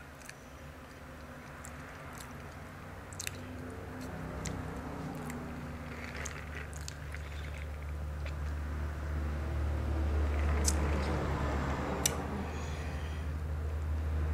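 Soft mouth sounds of chewing, with a sip from a foam cup about halfway through and a few light taps of fingernails on a phone screen, over a low steady hum that grows louder toward the end.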